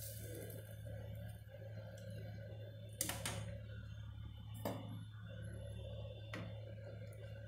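Three short, sharp clicks about a second and a half apart, over a steady low electrical hum.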